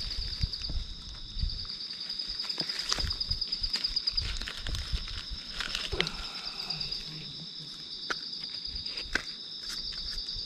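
Insects chorusing in a steady, high-pitched pulsing trill, with scattered close crackles and rustles of dry leaf litter underfoot.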